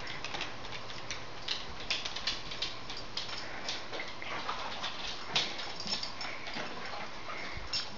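Dogs' claws clicking irregularly on a hardwood floor as two dogs move about and search.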